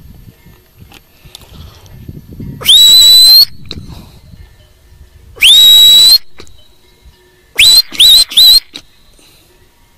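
Shepherd's whistle commands to working sheepdogs. Two long, loud whistles that sweep up to a high steady note with a slight flick upward at the end, then three short rising whistles in quick succession near the end.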